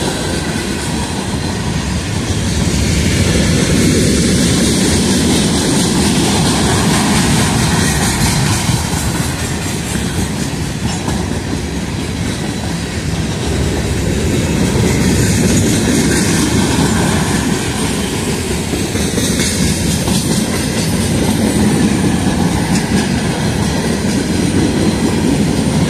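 Long freight train of open-top hopper cars rolling past close by: a steady loud rumble of steel wheels on rail with a clacking over the rail joints, swelling and easing slightly as the cars go by.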